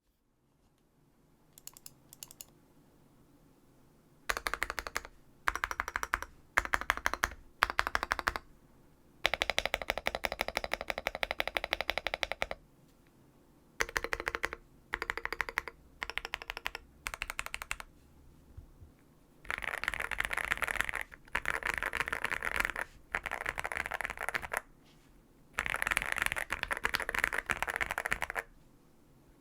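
Xinmeng M71 mechanical keyboard with lubed and filmed Gateron Milky Yellow Pro linear switches, PBT XDA keycaps, a tape mod and its stock foam, typed on in spells of fast keystrokes. A few light taps come first, then short bursts and several longer runs of typing with brief pauses between.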